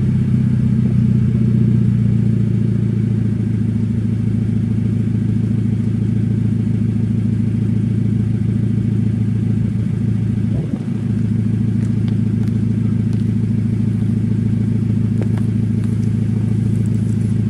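2014 Scion FR-S's flat-four boxer engine idling steadily through a Borla downpipe, mid-pipe and cat-back exhaust, warmed up after a cold start. The exhaust note is loud and deep and holds an even pitch with no revs, with a brief dip in level about eleven seconds in.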